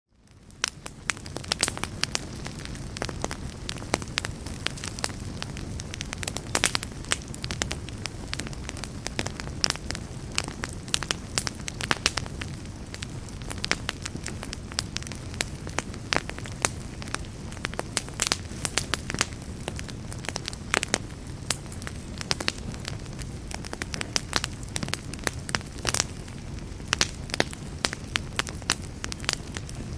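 Fire burning in a fireplace: a steady low rumble of flames with frequent, irregular sharp crackles and pops. It fades in over the first second.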